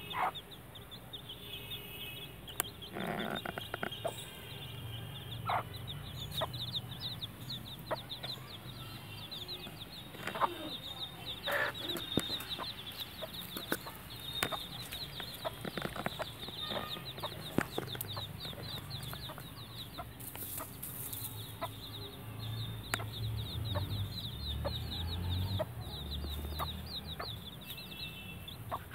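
Baby chicks peeping continually in quick, high, short chirps, over the low clucking of their mother hen, with scattered short clicks.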